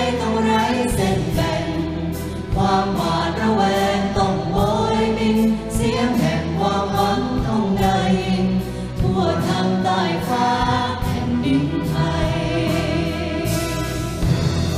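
A large mixed choir of adults and children, with soloists on microphones, singing a Thai song in unison to a symphony orchestra.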